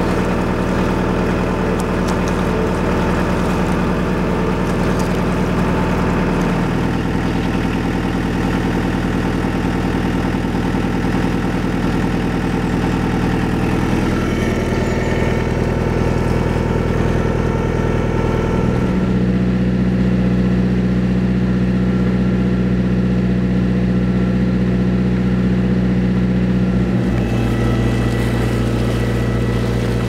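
A boat's engine running steadily at low revs. About two-thirds of the way through its note shifts to a deeper, fuller hum.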